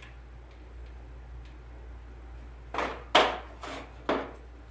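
Four sharp clicks about half a second apart, starting a little under three seconds in, from a hot glue gun being handled while glue is put on a silk flower stem.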